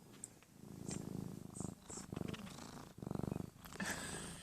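Domestic cat purring softly, in repeated bouts of about half a second to a second with short breaks between them.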